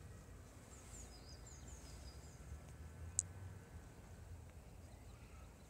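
Faint outdoor ambience: a low wind rumble with birds chirping, a run of short high chirps in the first half and one sharp high note about three seconds in.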